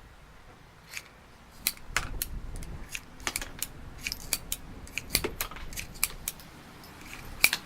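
Irregular sharp metallic clicks from a Ruger New Bearcat .22 single-action revolver at half cock, its cylinder being turned and the empty cases unloaded.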